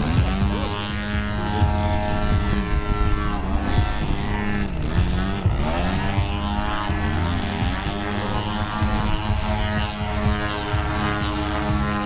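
Radio-controlled model airplane's engine and propeller running at high power through aerobatic passes. Its pitch sweeps down and back up several times as it passes and climbs.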